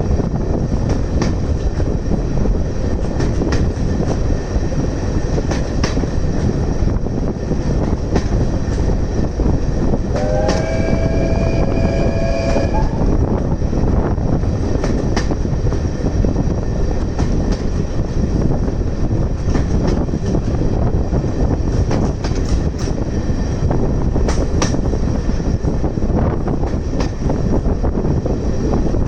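Heritage train running along the line, a steady rumble of wheels on rail with scattered clicks over the rail joints. About ten seconds in, the locomotive sounds a whistle of several pitches at once for about two and a half seconds.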